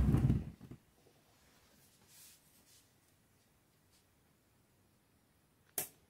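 Front-loading washing machine during a wash with water in the drum: a loud thump at the start with a brief slosh, then near silence while the drum stands still, and a single sharp click near the end.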